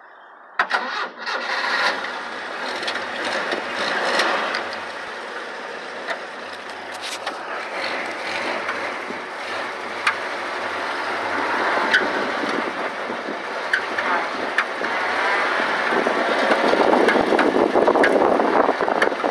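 Willys M38A1 jeep's F-head four-cylinder engine starting about half a second in, then running as the jeep is driven, getting louder near the end.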